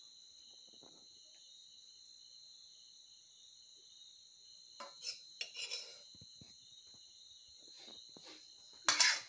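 A metal serving spoon scraping and clinking against a steel wok and steel bowls as curry is dished out. There are a few light scrapes about five seconds in and a loud clatter near the end, over a steady high drone of crickets.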